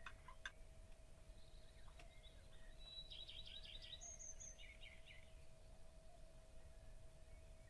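Near silence: faint room tone with a steady low hum. A couple of soft knife taps on the cutting board come right at the start, and faint bird chirps are heard around the middle.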